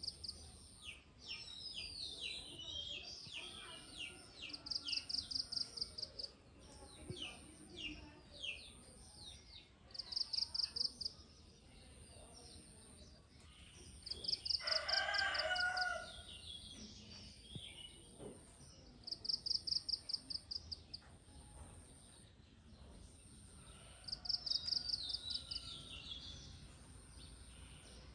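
Outdoor garden ambience: a rooster crows once about halfway through. Small birds chirp near the start, and a high, rapidly pulsed trill repeats every four to five seconds over a faint high steady buzz.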